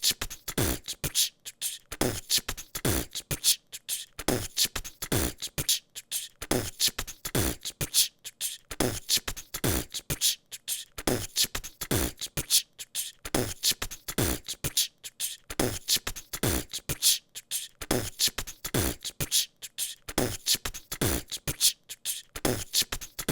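A person beatboxing a steady groove: deep kick-drum sounds that drop in pitch, alternating with crisp snare and hi-hat sounds made with the mouth.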